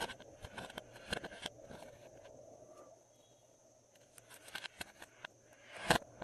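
Glossy slime being worked by hand, giving bursts of small sticky clicks in the first second and a half and again near the end, the loudest click just before it ends.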